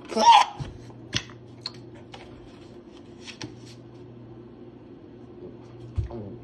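Plastic gallon jug being handled: a crackle of the cap and plastic as it is opened, then a few light clicks and knocks as the jug is lifted to drink from. A low steady hum runs underneath, and there is a single dull thump near the end.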